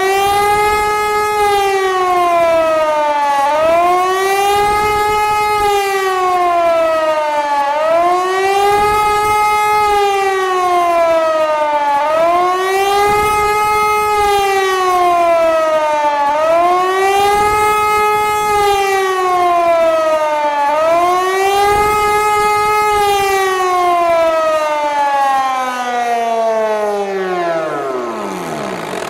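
Hörmann HLS-273 compressed-air siren sounding a test alarm with the rising and falling warning tone, one swell about every four seconds. Near the end the pitch falls away steadily as the siren winds down and stops.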